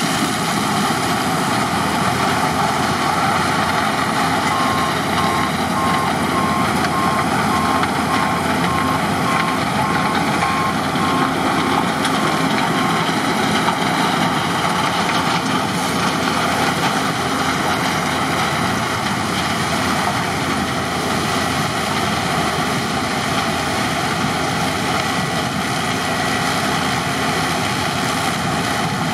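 New Holland CX 7.90 combine harvester running steadily while harvesting corn with an 8-row Dominoni corn header: a continuous, even mechanical noise of engine and threshing machinery with steady underlying tones.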